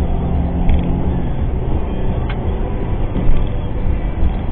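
Steady road and engine rumble of a moving car, recorded by a dash cam inside the cabin, with a few short knocks, the loudest about three seconds in.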